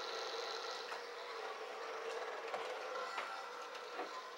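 Cisco Catalyst 2950 switch's cooling fan running just after power-up: a steady whir with several steady pitched tones in it, which sounds like a fan that needs replacing. A few light taps come from the metal case being handled.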